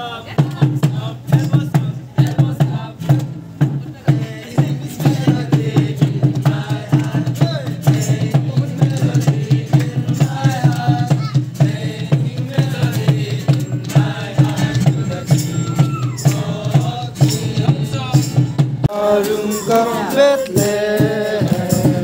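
Music with a steady beat and voices singing along. About nineteen seconds in, the beat cuts off and the singing voices carry on.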